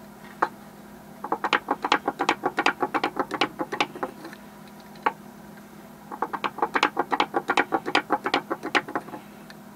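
Wooden toy kangaroo hopping down a sloped board, its pivoting wooden legs clacking quickly against the wood. There are two runs of about three seconds each, with a pause of about two seconds between them.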